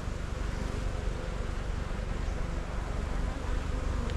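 Honey bees of an opened hive buzzing as a steady, even hum.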